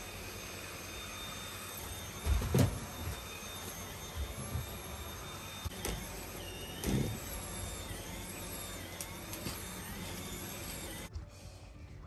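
Vacuum cleaner running steadily, with two dull thumps, then switched off about eleven seconds in.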